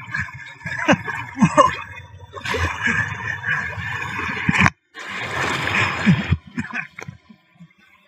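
Rushing water and splashing as a rider slides down a natural rock water slide. The sound cuts out for a moment about halfway, comes back, then quietens near the end.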